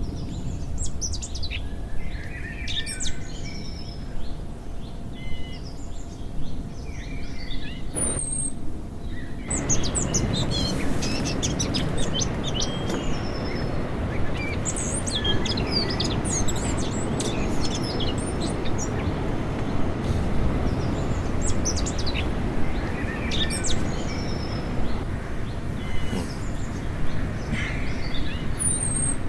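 Small birds chirping and trilling in repeated short high calls. Under them runs a steady rushing noise that grows louder about nine seconds in.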